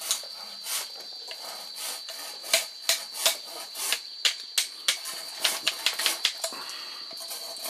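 Irregular sharp clicks and knocks that come thick and fast in the middle, over a steady high drone of insects.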